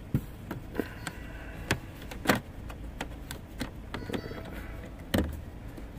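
Sharp plastic clicks and knocks from a cabin air filter and its plastic cover being handled and fitted into the filter housing, about eight of them, the loudest a little over two seconds in and about five seconds in, over a steady low hum.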